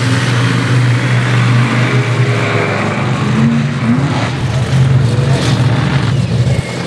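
Bigfoot monster truck's engine running with a steady low drone as the truck drives across the arena, easing off shortly before the end.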